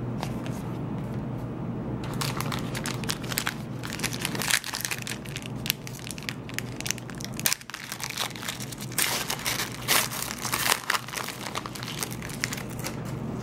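Foil wrapper of a Panini Marquee basketball card pack crinkling and crackling in the hands as it is opened, in irregular bursts.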